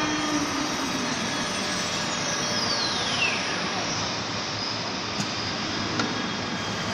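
Wood CNC router spindle winding down, its whine falling steadily in pitch over about two seconds, as the machine readies a change at its disk automatic tool changer. A steady machinery noise runs underneath, with a couple of light clicks near the end.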